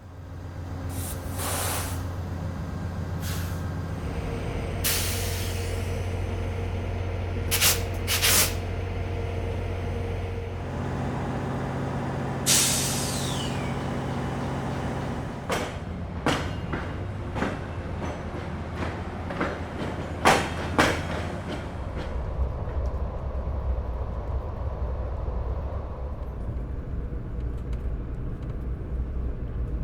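Standing passenger train with a steady mechanical hum, broken by several sharp air-brake hisses and then a series of metallic clunks. Later the hum gives way to a lower rumble.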